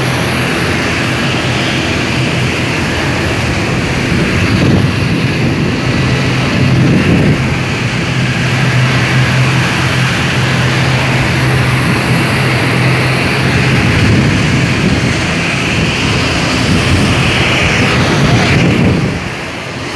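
Jet airliner engines running on the apron: a loud, steady rush with a low, even hum beneath it, easing off slightly near the end.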